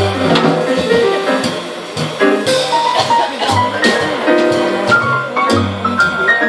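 Live jazz played on acoustic piano, upright double bass and drum kit, with cymbal strokes and bass notes under the piano.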